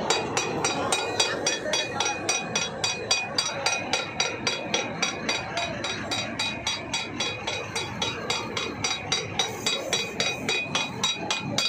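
Rhythmic metallic clinking at an even pace of about four strikes a second, each with a short ringing tone, over a steady noisy background of boat machinery.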